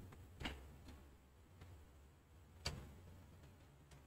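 Near silence with two faint short taps, about two seconds apart.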